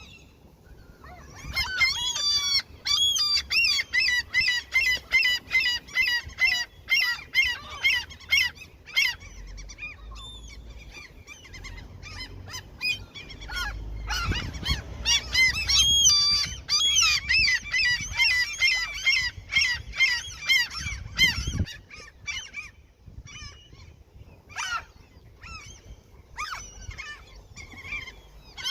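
Seagulls calling: two long runs of rapid, repeated sharp calls, the first starting a second or two in and the second about halfway through, with scattered single calls between and near the end.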